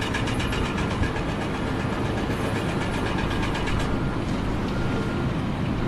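A machine running steadily, with a fast, regular clatter through the first half.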